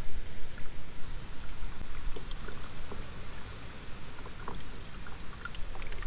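Water from a small solar fountain pump spraying up between rocks and falling back into a shallow bowl of water: a steady splashing with many small, scattered droplet ticks.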